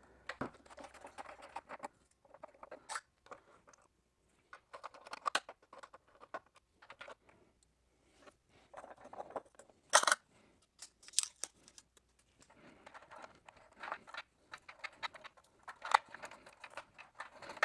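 Hands handling wiring and a roll of tape while the old Teeces lights are stripped out of an R2-D2 dome. Scattered rustles, clicks and short tearing sounds come with a couple of brief pauses, and the sharpest is about ten seconds in.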